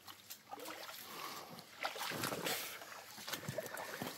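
Boots wading through a shallow creek, with irregular splashing and sloshing of water and brush scraping against clothing. It is loudest about two seconds in.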